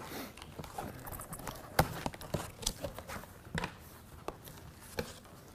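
Gloved hands pulling cut plastic straps away from a cardboard appliance box: a string of irregular light knocks and taps, the sharpest about two seconds in.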